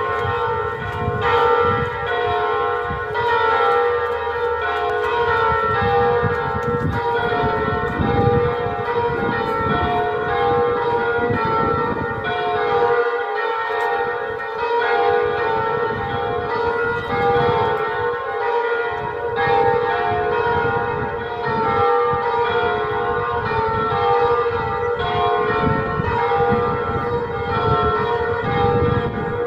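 Electronic simulation of four church bells swung in a full peal ("a distesa"), tuned G-flat, A-flat, B-flat and B, their strokes overlapping continuously and played through a Fratucello mushroom-horn loudspeaker on the bell-tower terrace. The peal is the call to the festive mass.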